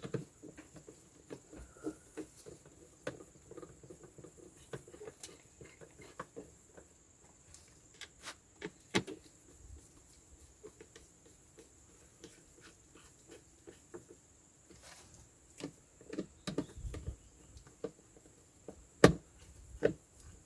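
Scattered light clicks, taps and knocks of parts and tools being handled during hands-on repair work, with one louder knock near the end.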